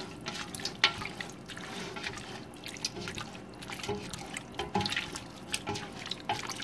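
Silicone spatula stirring oil-and-vinegar-dressed mushrooms in a stainless steel pot: wet, irregular clicks and scrapes.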